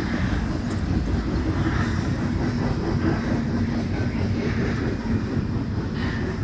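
Double-stack intermodal freight cars rolling past: a steady low rumble of steel wheels on the rails.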